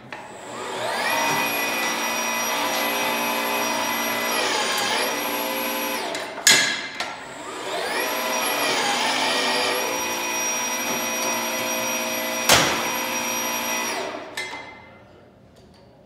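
Milwaukee MX Fuel battery-powered pipe threading machine running with a steady high whine. It spins up, runs for about five seconds and stops with a sharp clank. It then runs again for about six seconds, with another sharp clank near the end, and winds down.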